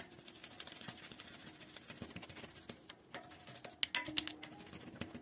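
Toothbrush scrubbing dust off an electric bike's front wheel hub: faint, quick scratching strokes with a few sharper clicks of the brush or hand against the metal about three to four seconds in.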